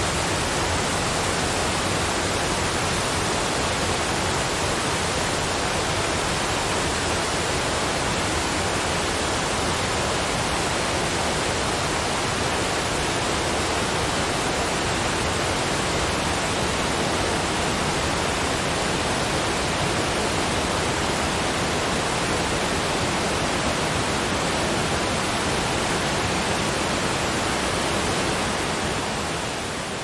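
Waterfall: a steady, unbroken rush of falling water, fading out near the end.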